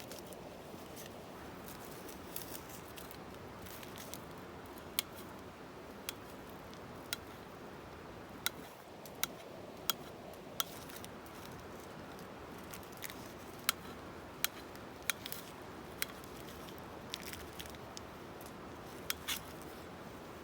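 Scattered sharp clicks and taps of metal cooking utensils against a pan, irregular and a second or two apart, over a steady background hiss.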